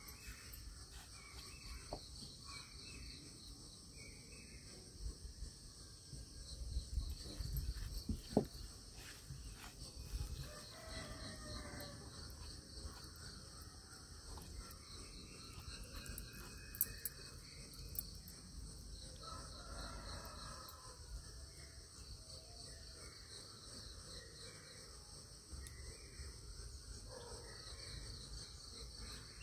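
Steady high chirring of insects, with scattered short bird calls and a few soft thumps about a quarter of the way in.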